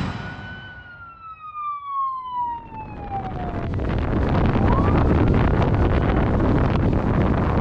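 A police siren wailing once, falling steadily in pitch over about three seconds. From about three seconds in, wind noise on the microphone and road rush build up and hold steady.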